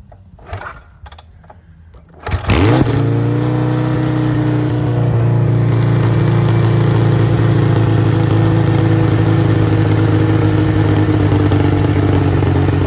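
Kawasaki Z1/KZ900 air-cooled inline-four being kick-started from cold on choke: a few knocks, then about two seconds in the engine catches with a quick rev and settles into steady running through its Z Cross aftermarket exhaust.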